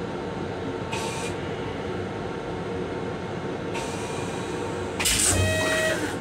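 Steady rumble of a moving M7 electric railcar, with two short hisses. About five seconds in, the car's restroom toilet flushes: a sudden loud rush of water with whistling tones, lasting about a second.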